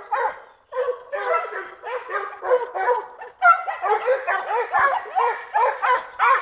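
A pack of boar-hunting hounds baying in a continuous chorus of overlapping barks, several a second.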